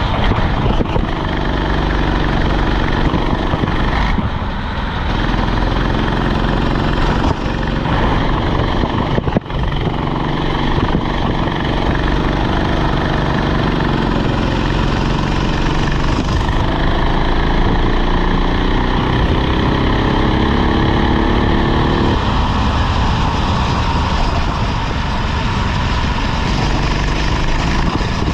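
Rental go-kart engine running hard, its pitch rising and falling as the throttle is worked, with one long climb in pitch that drops away sharply about three quarters of the way through when the throttle is lifted.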